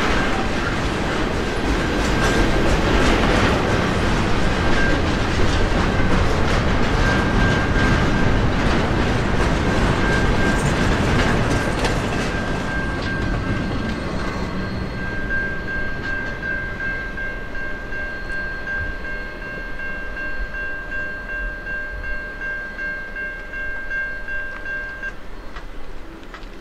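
Freight train rolling past, its wheels clacking over the rails, with a steady high-pitched squeal running over the noise. The noise eases off through the second half.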